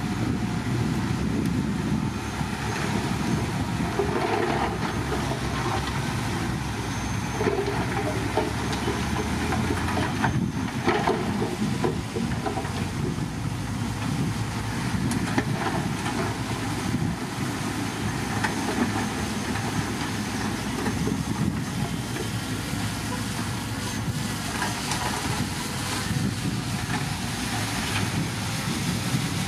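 Caterpillar 312C hydraulic excavator's diesel engine running steadily under load, with occasional sharp knocks and clanks from its work.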